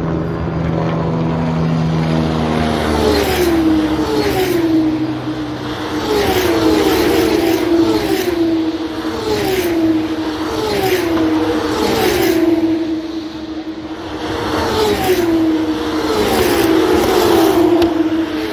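A stream of Formula 2 cars' turbocharged V6 engines passing one after another at high speed, each engine note dropping in pitch as the car goes by.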